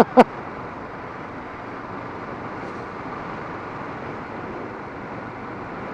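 Steady wind rush and road noise from a Kawasaki Vulcan S motorcycle under way, with no distinct engine note standing out.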